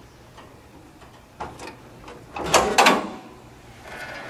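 Hood of a 1959 Chevrolet Impala being unlatched and raised: a few light clicks, then two loud clunks with a short rattle about two and a half seconds in.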